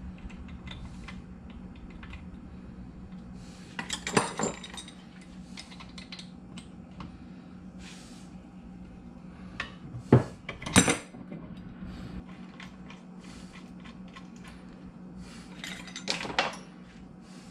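Steel hand tools clinking and clattering on a wooden workbench as wrenches and a thread tap are picked up, used and set down, with sharper clanks about four seconds in, twice around ten to eleven seconds, and near the end. A faint steady hum runs underneath.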